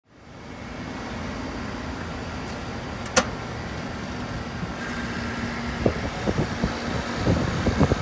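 Trane heat pump outdoor unit running with a steady hum. One sharp click comes about three seconds in, and irregular thumps build near the end.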